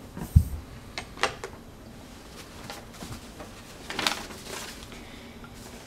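Handling noises as antenna parts and packaging are moved about: a dull thump about half a second in as the aluminium antenna boom is set down on the carpet, then a few light clicks and taps, and a brief rustle of a cardboard box and papers a few seconds later.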